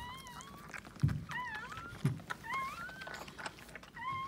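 Newborn Maltese puppy crying in a string of short, high, squeaky cries that slide up and down in pitch, about five of them. Two dull thumps come about one and two seconds in.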